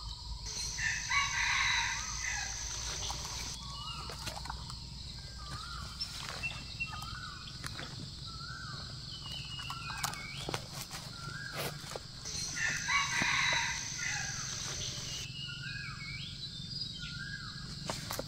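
Red junglefowl rooster crowing twice, about twelve seconds apart, with a run of short, rising clucking calls repeated between and after the crows.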